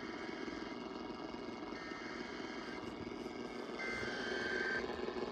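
Steady rushing static of an AM radio broadcast, with a faint burst of two high data tones about four seconds in, lasting about a second.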